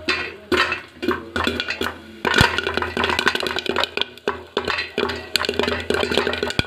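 Corn kernels popping inside a lidded aluminium pot: a dense, irregular run of sharp pops and taps, one louder pop a little over two seconds in.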